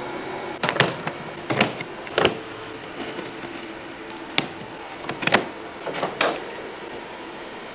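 Cardboard ornament box being handled and slit open with a blade: about half a dozen short, sharp clacks and scrapes spread over several seconds.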